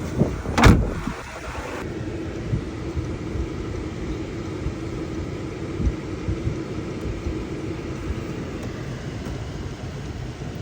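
A sharp knock under a second in, then a steady low hum with a faint constant tone and a few small knocks.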